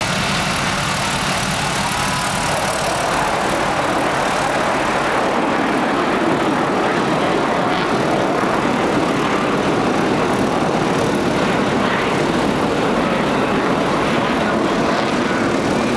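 Military jet aircraft flying overhead in formation, their engines making a loud, steady rushing noise.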